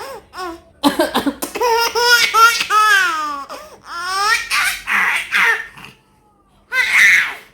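A baby laughing hard, in a string of high-pitched belly laughs that rise and fall in pitch, set off by his father's coughing. A short, rough cough comes about seven seconds in.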